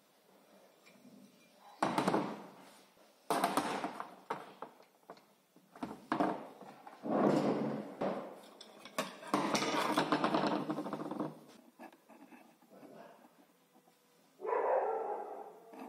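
Tools being handled and set down on a workbench: a run of knocks, clatter and scraping as an angle grinder with its cord and a steel bar are laid on the bench.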